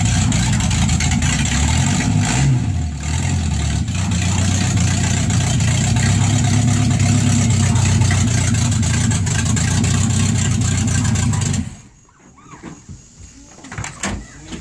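V8 engine in a Datsun 240z running at idle, its pitch briefly rising and falling about two and a half seconds in, then shut off abruptly about twelve seconds in, leaving a few faint knocks.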